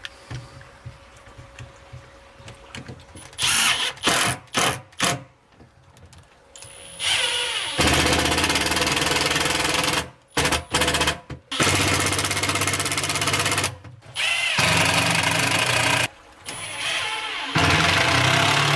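Milwaukee M12 Fuel cordless driver driving coarse stainless square-drive screws into composite cabinet face frames. A few short bursts come about four seconds in, then four longer runs of about two seconds each as screws are sunk.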